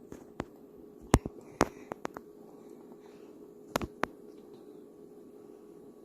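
A few short, sharp taps, the loudest about a second in and a pair near four seconds, over a faint steady hum.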